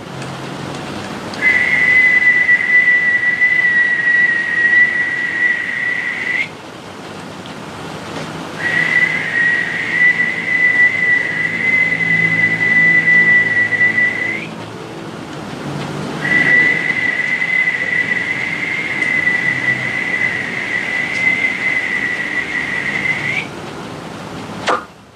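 A high whistled note held steady three times, each lasting about five to seven seconds with short pauses between, rising slightly as each one ends. Near the end comes a quick falling swish.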